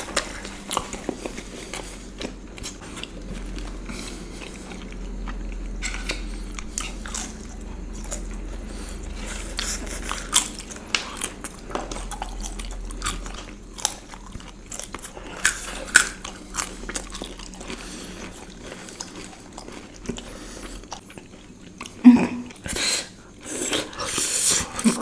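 Close-miked chewing and biting of Indian sweets: irregular wet mouth clicks and smacks, louder near the end.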